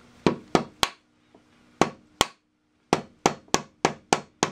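Hammer tapping a wooden dowel used as a drift to drive the gummed-up threaded post-locking rod out of a Rockwell RC-33 planer's casting. Sharp blows come three in quick succession, then two, then a steady run of about three a second.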